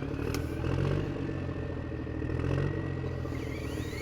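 An engine running steadily, revving up briefly twice.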